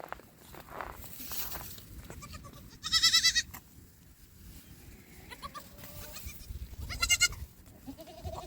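Goats bleating: two loud, wavering bleats, one about three seconds in and one about seven seconds in, with fainter calls between them.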